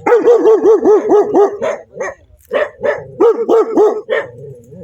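A dog barking angrily in rapid volleys of about five barks a second. A run of about eight barks is followed by a short pause, then a second run of barks.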